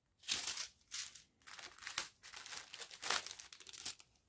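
Thin plastic crinkling in a series of short bursts as a strip of small sealed sachets of round diamond-painting drills is handled; it stops near the end.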